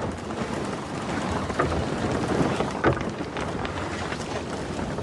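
Steady rush of wind and sea aboard a wooden sailing ship under way, with a few short knocks, the loudest about three seconds in.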